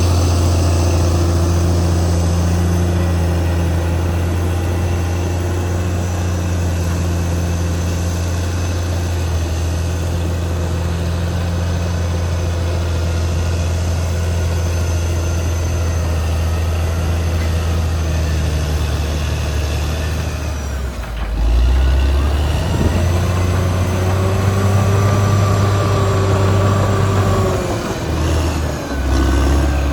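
Caterpillar D6R XL bulldozer's diesel engine running steadily under load. About 21 seconds in the sound briefly drops, then the engine pitch rises and falls several times before another short dip near the end.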